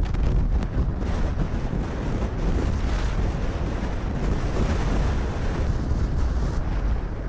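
Storm-force wind gusting hard, with heavy buffeting on the microphone and a steady rushing noise.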